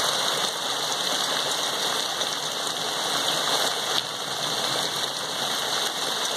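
Heavy rain pouring down steadily across a yard, with an occasional single drop striking close by.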